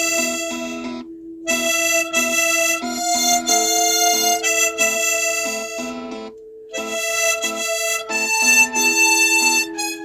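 Background music: a melody of long held notes over a repeating plucked accompaniment, the melody breaking off briefly about a second in and again about six seconds in.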